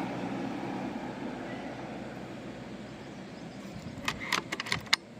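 A steady low hum fades away, then, about four seconds in, a quick run of about eight small sharp clicks as a rifle scope's turret is dialled.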